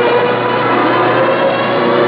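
Piston engines of WWII fighter planes droning steadily, several engine tones overlapping and drifting slightly in pitch.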